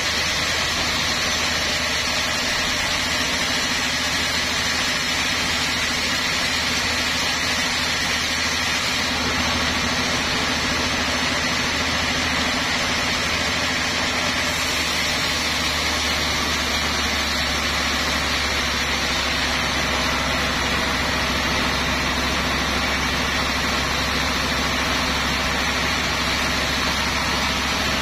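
Large band sawmill running steadily: a continuous machine hum with a steady high whine on top.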